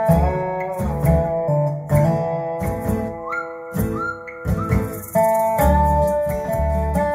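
Guitar-led instrumental with bass and drums played back through a pair of Sonus Faber Cremona floor-standing loudspeakers in a listening room. A few lead notes slide up in pitch a few seconds in.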